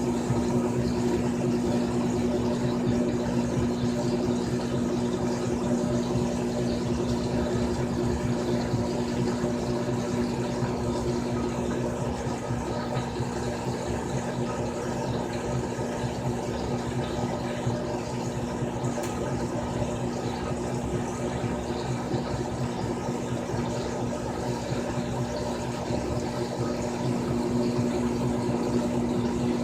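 Frigidaire Gallery Series top-load washing machine (model FWS777GH50) running, a steady motor hum with a constant tone.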